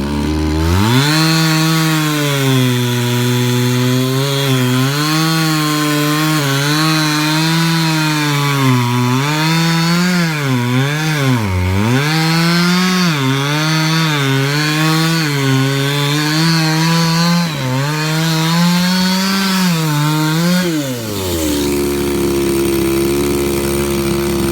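Chainsaw cutting wood at full throttle, its engine pitch sagging and recovering over and over as the chain bites under load. About three-quarters of the way through the throttle is released and it settles to a steady idle.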